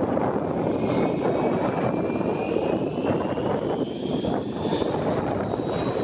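Airbus A320-232's IAE V2500 turbofan engines running up for take-off: a loud, steady jet roar with a thin whine that rises slowly in pitch as the engines spool up.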